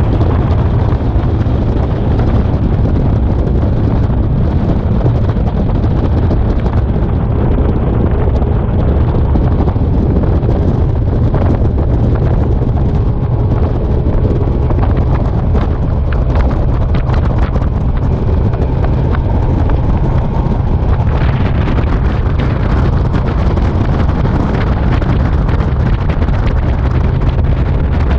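Boat running at speed on the water: steady loud wind buffeting the microphone over the drone of the boat's motor, with scattered knocks.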